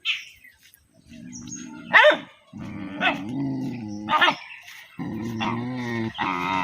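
A dog growling low and steadily, with sharp barks about two, three and four seconds in and another near the end.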